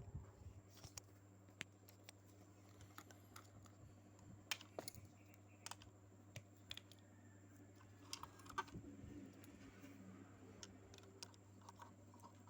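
Near silence with faint, scattered light clicks and taps over a steady low hum.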